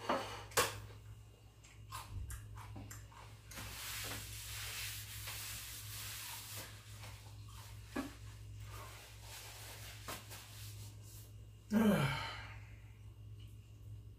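A person's sounds while finishing a meal: scattered small clicks and mouth sounds, a breathy stretch about four seconds in, and a voiced sigh falling in pitch about twelve seconds in.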